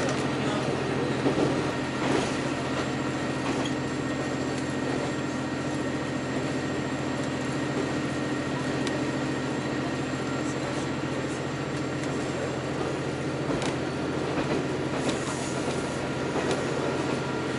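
Diesel railcar running at speed, heard from inside the car: a steady engine drone over rolling wheel-on-rail noise, with a few sharp clicks from the track.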